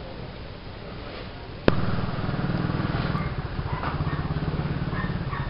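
A sharp click, then an engine running steadily with a fast, even pulse, louder than the faint hum before it.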